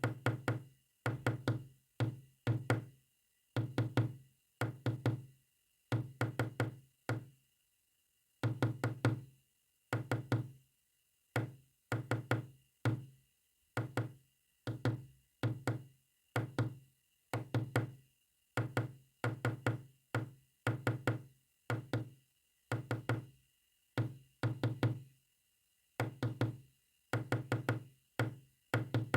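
Knocking in quick clusters of two to five knocks, each cluster followed by a short pause, tapped out as Morse code.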